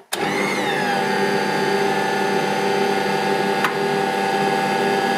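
An electric kitchen machine's motor, switched on at its first speed setting, starts with a click and runs with a loud, steady whir. Its pitch drops during the first second and then holds steady. There is a single click about three and a half seconds in.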